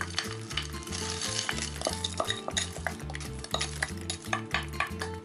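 Frozen peas tipped from a bowl into a pot of rice and water, a wooden spoon scraping them off the bowl: an uneven run of small clicks, knocks and splashes. Background music with a steady low beat plays underneath.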